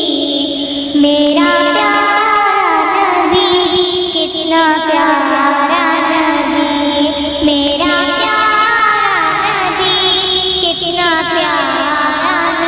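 A high-pitched voice singing a devotional qawwali in long phrases, holding ornamented notes that slide between pitches, over musical accompaniment.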